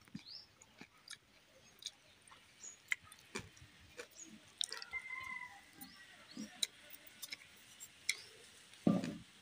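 Close-up eating sounds: scattered wet mouth clicks and smacks of a man chewing rice eaten by hand, with a louder, lower sound near the end.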